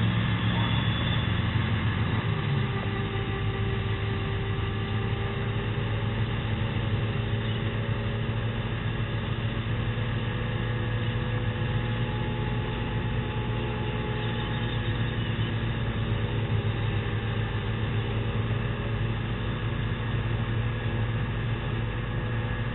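Cabin noise of a Robinson R22 helicopter: main rotor and engine sounding as a steady hum with a few slowly wavering tones, during an autorotation descent with the engine throttled back.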